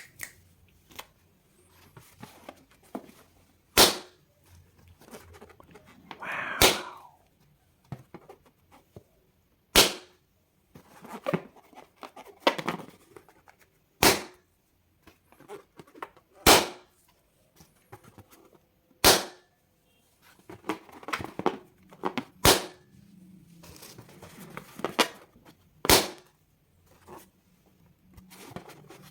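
Balloons popping one after another: about eight sharp, loud pops a few seconds apart, with smaller clicks and soft handling noise between them.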